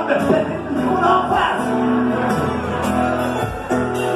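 Band playing the instrumental introduction of a song, with guitar and held chords.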